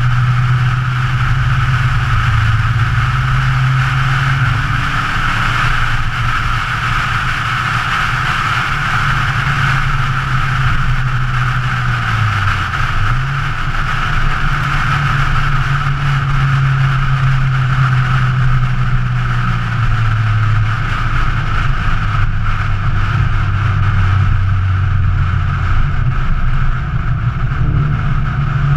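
A 2013 Scion FR-S's flat-four engine pulls steadily at speed under a continuous rushing of wind and road noise. Its note drops and climbs again a few times, around the middle and again later on, as the revs change through the drive.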